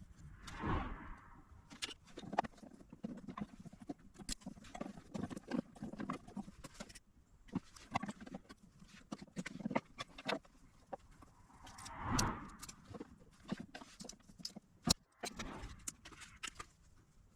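Irregular clicks, taps and knocks of small tools and parts being handled on a workbench, with two brief louder rustling sounds, one about a second in and one about twelve seconds in.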